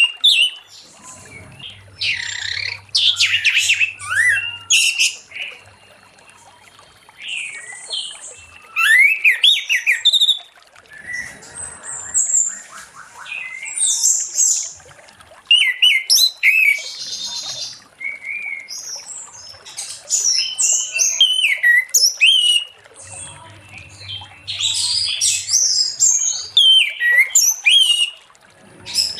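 Orange-headed thrush singing freely: a long run of varied whistled, gliding and chattering phrases, coming in quick bursts with short pauses between them.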